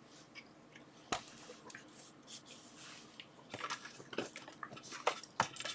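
Small hand tools being handled and set into a tool organizer: a sharp click about a second in, then a run of short knocks and rattles near the end.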